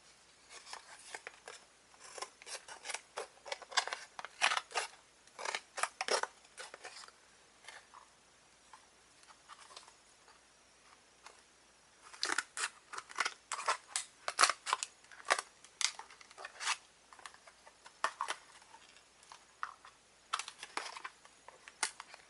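Scissors cutting open product packaging: quick runs of sharp snips, pausing for a few seconds near the middle before the cutting starts again.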